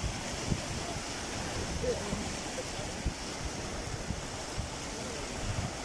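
Choppy lake waves washing and breaking onto a stony shore, a steady rushing wash, with wind buffeting the microphone.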